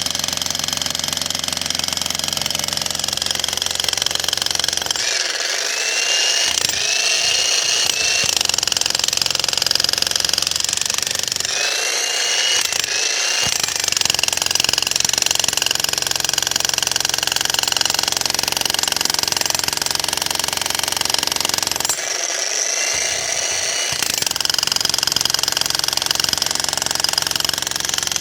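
An Xtreme Power 2200-watt electric jackhammer hammering continuously into a concrete slab, loud and steady. Its deepest rumble drops away briefly about five, twelve and twenty-two seconds in.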